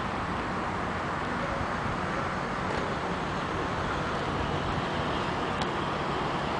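Steady vehicle and road-traffic rumble, continuous and even, with a couple of faint clicks.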